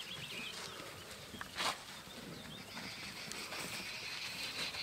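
Bush ambience: birds chirping, a steady high buzz that comes in about halfway through, and one brief rustling noise a little under two seconds in.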